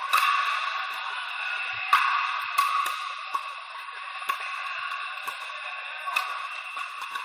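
Pickleball paddles striking the hard plastic ball: about seven sharp pops at irregular intervals, some from the near court and some from neighbouring courts. Under them runs the steady din of a large indoor court hall.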